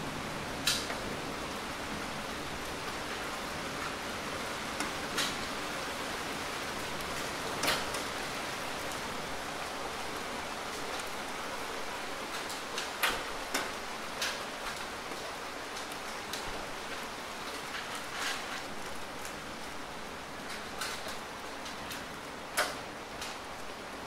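Steady rain falling, an even hiss, with about a dozen sharp taps of single drops landing close by scattered through it.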